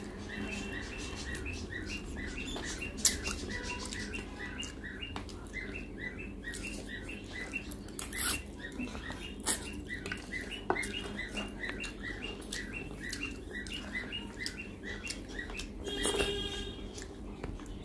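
Close-up eating sounds of chicken curry eaten by hand: wet lip smacks, clicks and sucking on a chicken piece, with a few louder slurps. Behind them runs a steady high chirping that repeats about three times a second.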